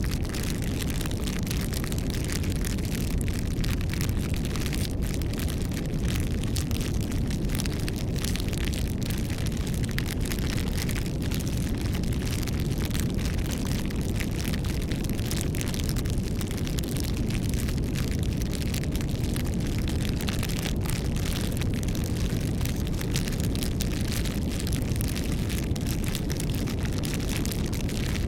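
Wood fire burning: a steady low rumble of the flames with frequent small crackles and pops.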